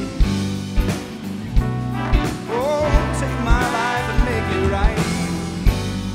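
Worship band music with a steady drum beat, about one stroke every 0.7 s, under sustained bass and chords. A valved brass instrument plays a wavering melodic line through the middle.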